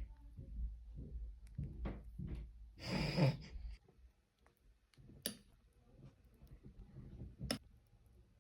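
Kitchen handling sounds: scattered soft knocks over a low rumble, a brief louder rustling burst about three seconds in, then two sharp clicks in the second half.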